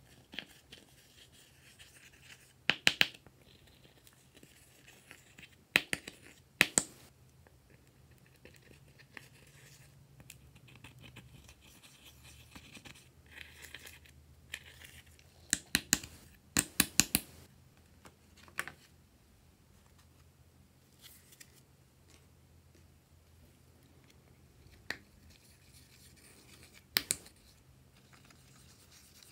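A thin plastic stick scraping and picking pressed eyeshadow out of the pans of a plastic palette: soft scratching broken by sharp clicks and taps every few seconds, with a quick run of them about halfway through.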